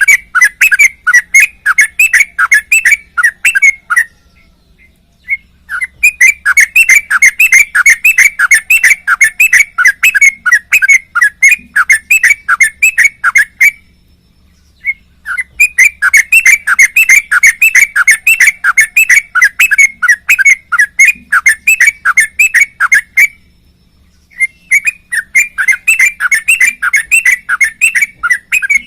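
Sooty-headed bulbul singing long runs of rapid chirping notes, several a second, in four bouts of several seconds each with short pauses between.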